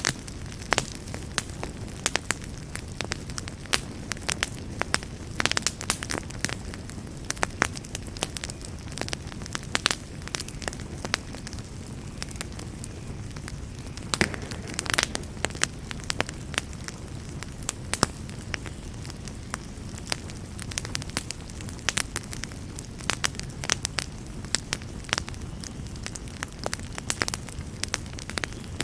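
Wood fire burning in a fireplace: a steady low rumble of flames under frequent sharp crackles and pops at irregular intervals.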